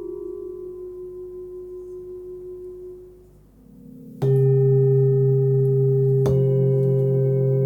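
Forged Tibetan singing bowls ringing. A wavering tone dies away over the first three seconds. About four seconds in a bowl is struck and rings out loud and full with a deep hum, and a second strike about two seconds later adds another layer of tones.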